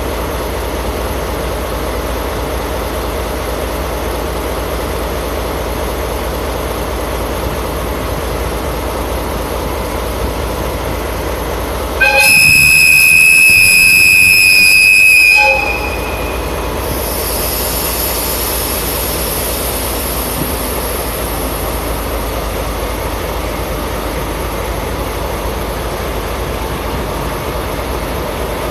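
Diesel locomotive idling at the head of a train, a steady rumble, with a single loud, high-pitched horn blast of about three seconds about twelve seconds in, signalling departure. A hiss follows shortly after the horn.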